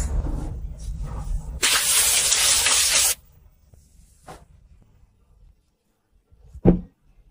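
Ice cubes rattling into a steel tumbler from a plastic scoop. This is followed by about a second and a half of loud fizzing hiss as soda is poured over the ice. Near the end comes a single sharp thump, as of a kitchen drawer.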